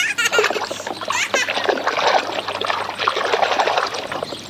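Water splashing and sloshing in a small plastic wading pool as a hand swishes a plastic toy animal vigorously back and forth through it.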